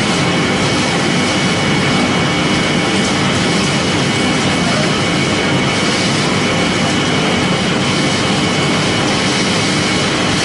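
Grass and alfalfa processing machine running steadily while it is fed: a loud, even mechanical noise with a steady high whine.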